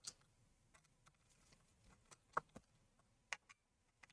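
A handful of faint, sharp clicks spread over a few seconds, with near silence between them: a pentalobe screwdriver and small screws being handled on a laptop's bottom case.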